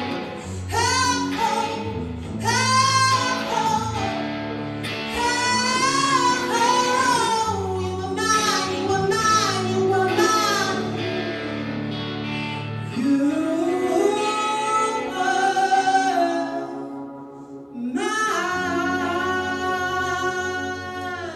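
A female singer singing with guitar accompaniment, ending on a long held note near the end.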